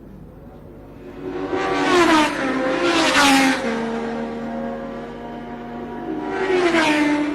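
1970s Formula One cars passing at racing speed, three in turn, each engine note loud and then dropping in pitch as the car goes by.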